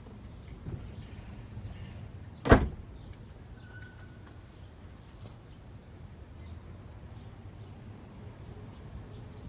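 A VW Golf R's rear hatch is shut with one loud slam about two and a half seconds in.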